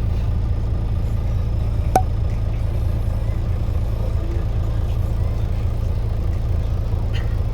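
Steady low rumble of a vehicle's engine, with one short click about two seconds in.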